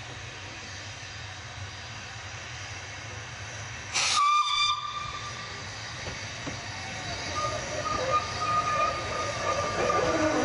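A steam whistle gives one short, loud blast about four seconds in, over a steady hiss of steam. A fainter whistle tone of the same pitch sounds again around eight seconds, while the double Fairlie locomotive Merddin Emrys and its narrow-gauge train draw nearer and grow louder.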